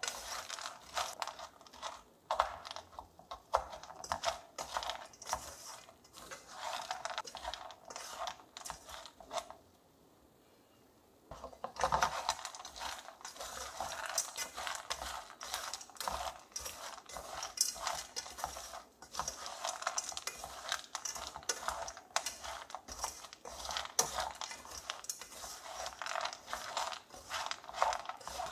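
Slotted wooden spoon stirring sugar-crusted peanuts in an aluminium pot: a dense rattle and scrape of nuts against the metal. It stops for about two seconds about ten seconds in, then goes on.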